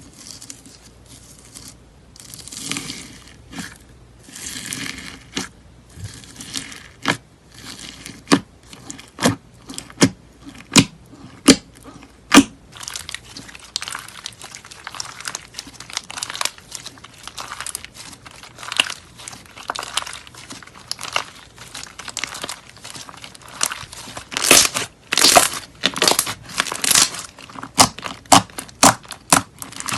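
Slime being squeezed and pressed by hand: crinkling, crackling and crunching, with a run of sharp pops about once a second near the start and louder crunching near the end.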